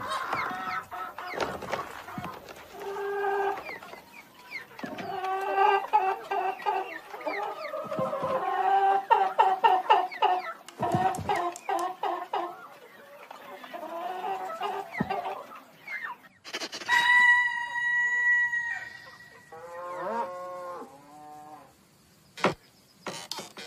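Hens clucking and cackling, the calls crowding together through the middle, with a long held squawk about two-thirds through and a few sharp knocks among them.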